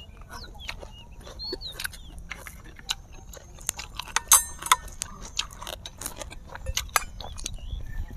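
Close-up eating sounds: chewing and wet mouth smacks of a man eating braised fish, with sharp clicks of a metal spoon against the dish, a couple of them louder about four to five seconds in.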